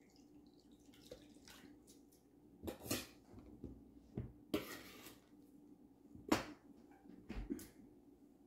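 Food preparation at a kitchen counter: a few short knocks and clattering rustles of utensils and dishes, the sharpest knock about six seconds in, over a steady low hum.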